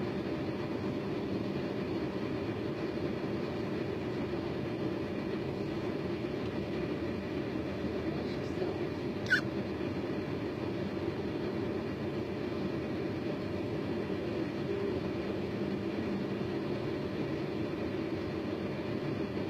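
A steady low rumble, with one short sharp sound about nine seconds in.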